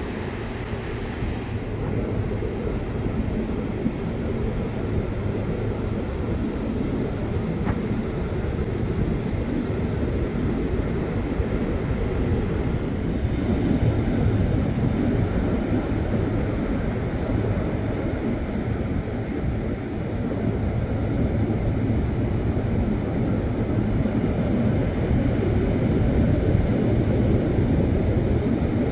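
Surf breaking and washing up a sand beach: a steady, low rush of waves that slowly swells and eases.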